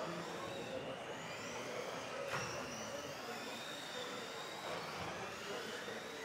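Several 1:10 electric RC off-road buggies racing together, their motors and gears whining in overlapping pitches that rise and fall as they speed up and slow down. A sharp click comes about two seconds in.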